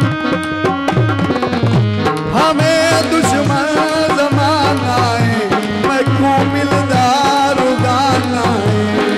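Live folk music: tabla playing with sliding bass strokes and a steady instrumental backing, joined about two seconds in by a male voice singing a wavering, ornamented melody.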